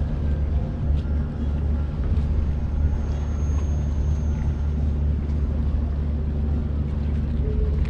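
Steady low engine drone, running evenly without change.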